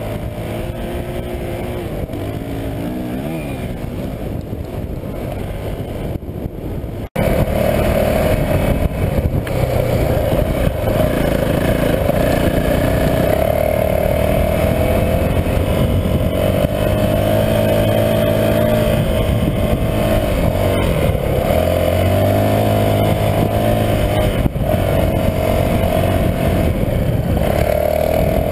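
2019 Honda CRF450L's single-cylinder four-stroke engine running as the bike rides over sand dunes, its pitch rising and falling with the throttle. A brief gap about seven seconds in, after which it is louder.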